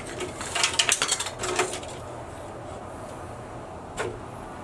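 Steel tape measure rattling and clicking against a drywall sheet in a quick cluster over the first two seconds, then a single sharp click about four seconds in.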